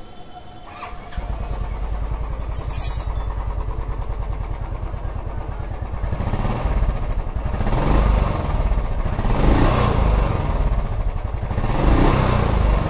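Royal Enfield Classic 350's single-cylinder engine starting about a second in and idling with an even thump, then revved three times in the second half. It is freshly rebuilt with new valves and piston rings to cure a bad engine noise, and runs clean with no knocking.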